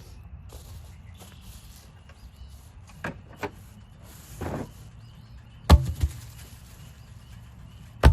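Quad (ATV) engine running with a steady low rumble, while logs knock and thud against it: several sharp knocks, the loudest about six seconds in and at the very end.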